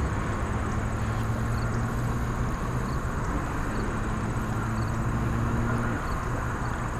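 Wind rumbling steadily on the microphone, with a low steady hum underneath that breaks off briefly about two and a half seconds in and again near the end.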